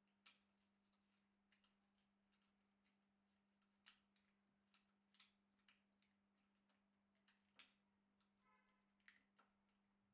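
Near silence with faint, scattered clicks and taps of a bicycle brake lever's metal clamp being fitted onto the handlebar and its clamp bolt tightened, plus one short squeak near the end.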